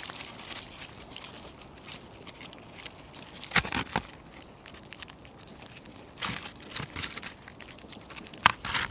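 Calico kitten eating a peeled boiled egg off a paper plate: soft chewing and licking with a few sharp clicks and scrapes against the plate, louder about three and a half seconds in, around six seconds and near the end.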